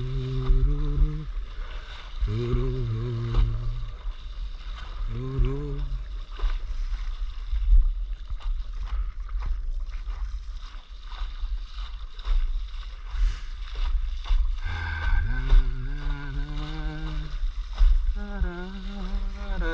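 A man humming a tune in long held notes, in several short phrases with a pause of several seconds in the middle, over steady wind rumble on the microphone and water rushing past a windsurf board.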